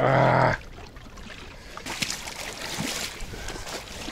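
A brief, loud, steady humming tone for about half a second at the start. From about two seconds in come crackling and splashing of broken ice slush and shallow water, stirred underfoot at the icy river edge.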